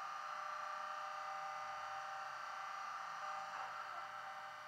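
Sound-fitted model Class 20 diesel locomotives idling: the DCC decoders play a recorded English Electric diesel idle through the models' small speakers, a steady hum of many tones with little bass. A brief falling tone comes about three and a half seconds in.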